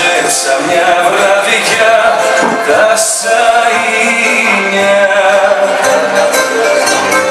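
A Greek song playing: singing over instrumental accompaniment, with long held melody notes.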